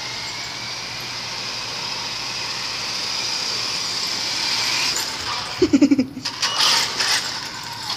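Small RC car's electric motor whining steadily, its pitch rising slightly. About five and a half seconds in comes a brief pitched squeal, the loudest sound, followed by a series of knocks and rattles.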